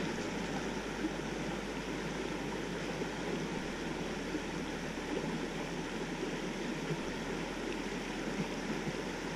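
Steady rush of a small stream's flowing water.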